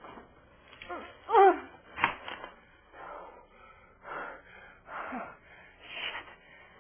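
A woman gasping and crying out in distress: a loud cry falling in pitch about a second and a half in, a sharp gasp just after, then several ragged, heavy breaths.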